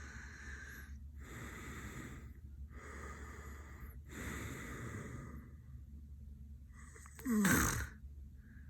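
A sleeping man snoring: four long, noisy breaths one after another, then a loud snort about seven seconds in whose pitch falls.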